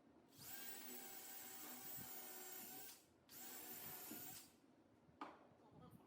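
A small power tool whirring in two runs, the first about two and a half seconds long and the second about a second.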